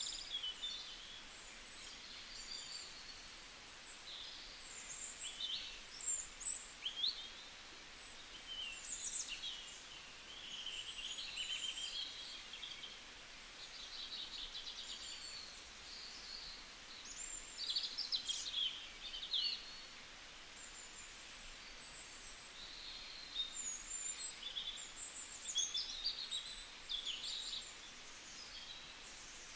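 Small birds chirping and singing in many short, quick phrases, over a steady outdoor hiss.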